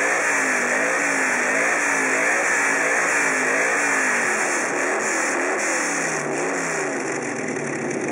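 Lamborghini Urraco Rally's V8 engine blipped repeatedly, its pitch rising and falling about twice a second, dropping lower near the end.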